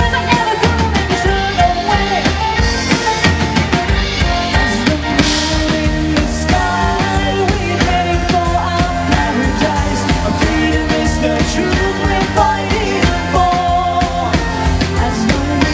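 Live band playing a song, with a sung melody over a steady drum beat.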